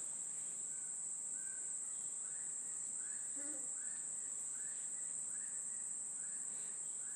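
Insects droning steadily at a high, even pitch. From about a second in, a faint short call repeats about every two-thirds of a second.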